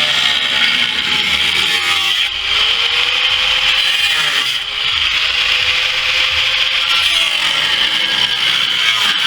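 Angle grinder with a cutoff disc cutting through the sheet-metal floor of a pickup bed, a steady grinding hiss over the motor's whine. The motor's pitch sags and recovers about four times as the disc bites into the metal.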